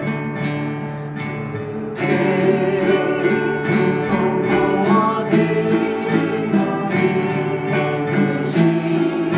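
Acoustic guitar and harp playing a hymn tune together, plucked notes at a steady pulse. The playing grows fuller and louder about two seconds in.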